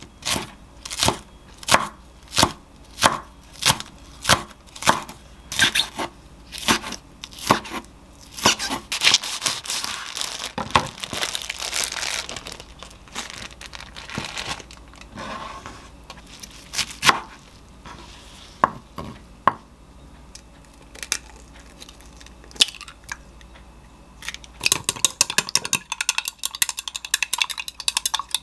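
Kitchen knife chopping a green onion on a wooden cutting board, in steady strokes about twice a second. Then comes a looser spell of scattered cuts and handling. Near the end, an egg is beaten in a glass cup with rapid light clicks.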